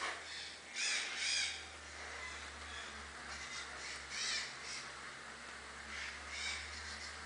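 A bird calling repeatedly, a pair of calls about a second in, then single calls every second or two.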